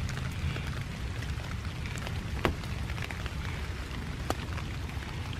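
Steady rain falling on leaves in woodland, with a few sharp drops standing out, the clearest about two and a half and four seconds in, over a low rumble.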